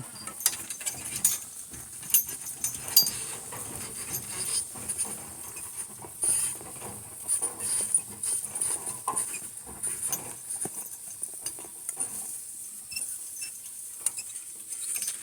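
A harnessed donkey team walking on: irregular clicks, clinks and rattles of harness hardware and hooves, with no steady rhythm.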